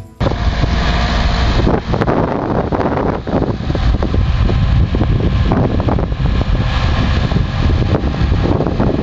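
Steady engine and wind noise, heavy in the low end, typical of the cabin of a single-engine light aircraft. It comes in abruptly just after the start.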